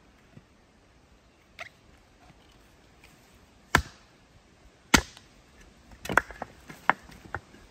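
Splitting axe striking a round of ash firewood: two sharp, hard chops about a second apart, the second the loudest, followed by several lighter wooden knocks.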